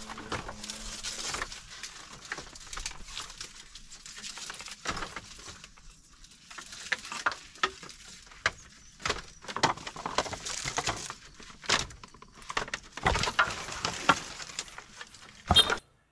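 Irregular rustling, scraping and light knocks, busier and louder in the second half, with a sharp knock near the end just before the sound cuts off suddenly.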